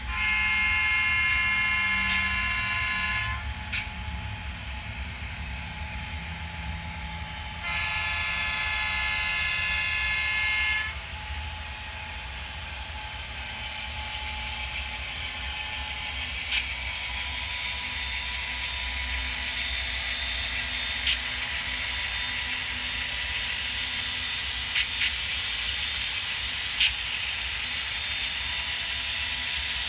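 Diesel locomotive horn of several tones sounds two blasts of about three seconds each, over a steady low engine rumble. A rushing noise then builds, broken by a few sharp clicks.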